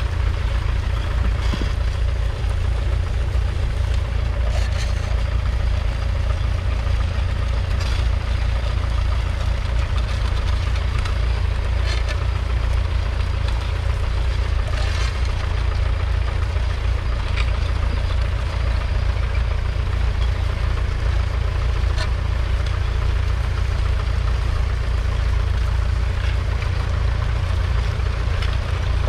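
1968 International Harvester B275's 2.3-litre four-cylinder diesel engine running steadily while the tractor pulls a two-furrow trailed plough through the soil, with a heavy low rumble and a few faint clicks every few seconds.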